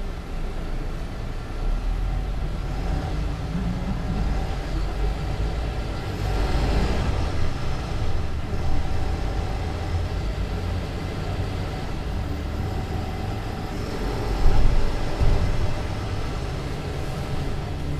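Mercedes-Benz Citaro C2 LE city bus under way: its Euro 6 diesel engine and Voith automatic gearbox running with a steady low drone. The drone swells briefly about six seconds in, and there are a couple of short louder knocks near the end.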